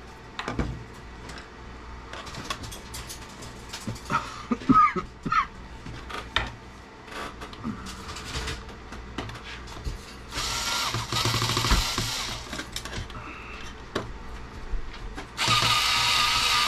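Small cordless electric screwdriver whirring in two runs, one of about three seconds in the middle and another starting about a second before the end, driving screws in a CB radio's metal chassis. Scattered light clicks and taps of metal tools come in between.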